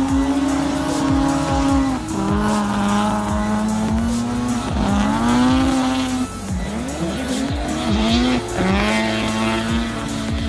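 Drift car on track, its engine held high on the throttle, then dropping and climbing again about every two seconds as the revs bounce through the drift, with tyre squeal.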